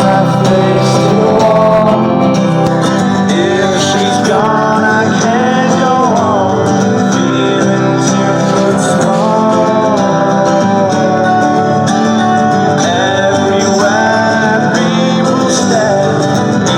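Recorded music with a male voice singing over guitars, loud and continuous.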